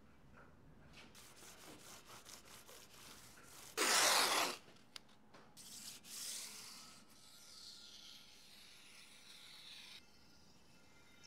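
Hands rubbing and scraping over a steel machine part, then about four seconds in a loud rip of masking tape pulled off the roll for just under a second. After that come softer scraping sounds as the tape is pressed down along the steel bar.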